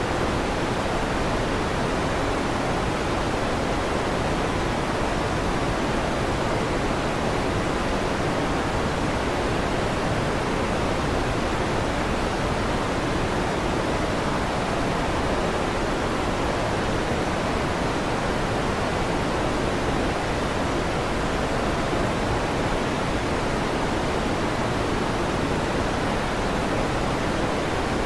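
Steady electric fan noise: an even, unbroken whooshing hiss, fuller in the low and middle range than at the top, with no thunder claps.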